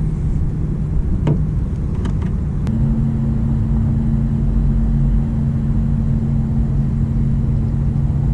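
Steady low rumble; after a click about two and a half seconds in, a steady low motor-like hum joins it and holds.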